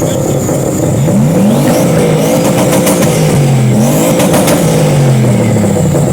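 Ford Mustang engine revving against a two-step launch limiter, with a jet-like high whine over it. The revs climb about a second in, dip and climb again near the middle, with a rapid crackle of pops from the limiter.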